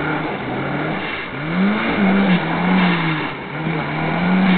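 A vehicle engine revving in several pushes of about a second each, its pitch rising and falling.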